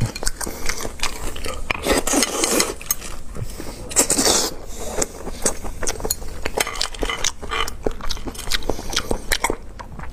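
Close-miked eating of boiled langoustines: sharp crackling clicks of shells being cracked and pulled apart by hand, mixed with biting and chewing, with two longer noisy stretches about two and four seconds in.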